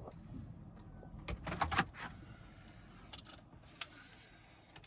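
A few small clinks and knocks of something being handled, loudest in a cluster about a second and a half in, with a couple more later.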